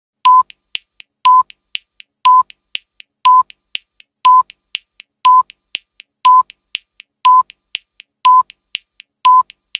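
Countdown-timer sound effect counting down ten seconds: a short beep with a sharp click once a second, ten times, with fainter ticks in between.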